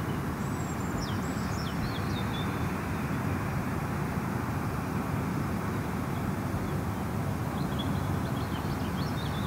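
Steady low outdoor background noise, even throughout, with a few faint high chirps about half a second in and again near the end.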